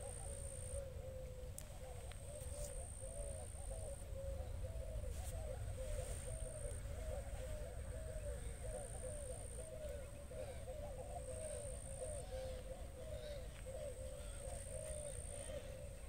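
A dense, continuous chorus of short, arching animal calls, over a low rumble. A thin high tone keeps breaking off and starting again.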